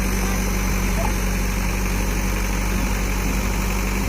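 Diesel engine of farm machinery idling steadily, with an even low hum that holds one pitch and does not rev.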